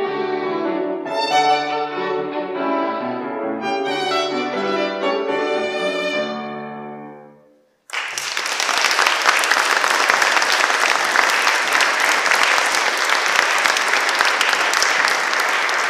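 Violin with piano accompaniment playing the closing bars of a classical piece, the last notes dying away about seven seconds in. A moment later audience applause breaks out and carries on steadily.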